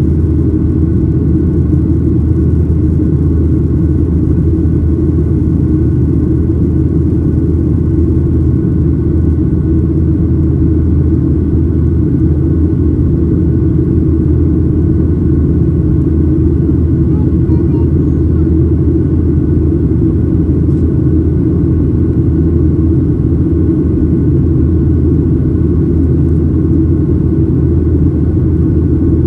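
Steady, loud low drone inside the cabin of a Boeing 737-900ER airliner in flight: its CFM56-7B jet engines and the airflow over the fuselage, with faint steady tones above the rumble.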